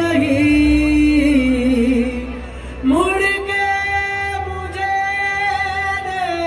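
Male vocalist singing a long, ornamented phrase live into a microphone, the pitch wavering up and down, then leaping up about three seconds in to hold one long high note, with harmonium accompaniment.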